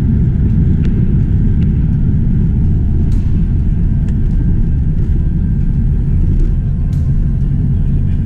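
Steady low rumble inside the cabin of an Airbus A330-200 rolling out on the runway just after touchdown, with its spoilers raised. A few faint clicks and rattles sound through it.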